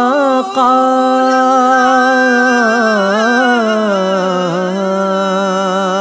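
A single voice singing an Urdu naat, holding one long wavering melismatic note after a brief break near the start. The note slides lower about halfway through.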